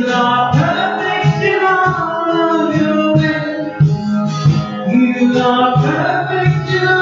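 A singer performing a song live with strummed acoustic guitar accompaniment.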